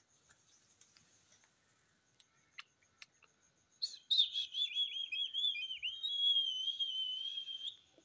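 Indian ringneck parakeet whistling: a loud, clear whistle starts about halfway through, warbles with quick dips in pitch, then holds one steady note for about two seconds before stopping abruptly. A few faint clicks come before it.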